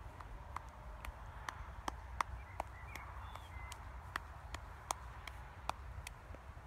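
Faint outdoor ambience: a steady low wind rumble on the microphone, with light sharp ticks about two or three times a second and a few faint chirps near the middle.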